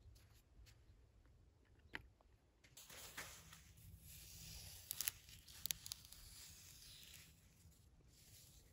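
Near silence with faint scraping and a few small clicks as a stick is pushed and worked into wet sand.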